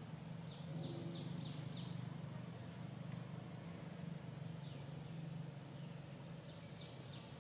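Birds and insects: a bird calls in quick runs of short falling chirps, once near the start and again near the end, over a steady high insect drone and a low steady hum.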